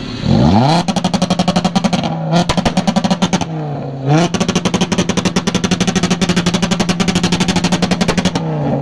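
Car engine revved up quickly, then held on a rev limiter, popping and crackling through the exhaust in a fast, even rhythm of about a dozen bangs a second. The revs drop and climb back twice before it stops near the end.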